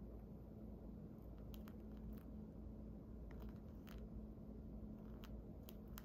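Cockatiel grinding its beak: faint, dry clicks and scrapes scattered irregularly, the sound of a relaxed, sleepy bird settling down.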